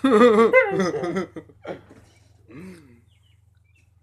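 A man's loud, high-pitched laughter with a fast-wavering pitch for about a second and a half, then two short bursts of laughter.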